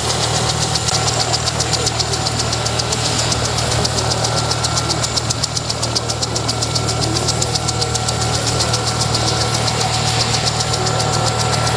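Turbofan engines of an Embraer E-Jet airliner taxiing at idle power: a steady whine with a few held tones over a constant low rumble.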